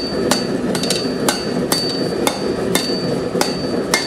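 Hand hammer striking a red-hot steel bar on an anvil, about two to three blows a second, with a steady high ring between the blows: the bar is being hot-bent over the anvil in a forging bending operation.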